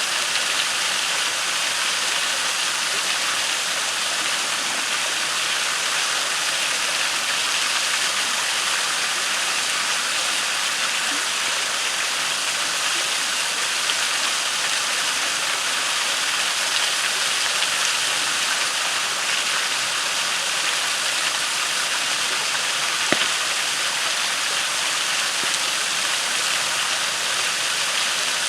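Waterfall rushing steadily into a creek pool, an even hiss of falling water. A campfire pops faintly now and then, once more sharply late on.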